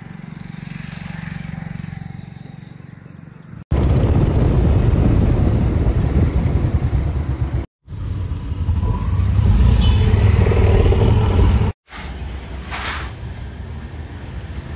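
Loud, dense rumble of an auto-rickshaw ride heard from inside the cabin, in two stretches that begin and end abruptly. It is framed by quieter outdoor road sound before and after.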